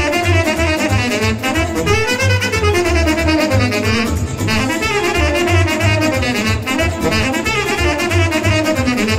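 Saxophone playing a fast, ornamented Romanian sârba dance tune from the Oltenia region, over a steady low bass-and-drum beat.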